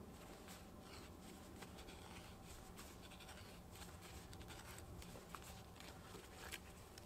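A knife carving a green-wood kuksa cup by hand: faint, short scraping cuts into the wood, roughly two a second.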